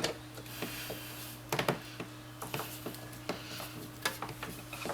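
Handling noises as screws are worked on a computer power supply unit: scattered small clicks and taps with stretches of soft rubbing, over a steady low hum.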